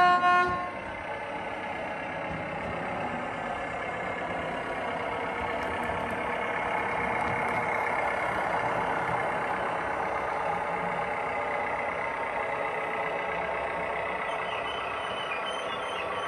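Diesel railcar sound from the decoder and speaker of a Heljan 7mm O gauge model: a short horn blast at the very start, then the recorded diesel engine running steadily as the railcar moves, swelling somewhat in the middle.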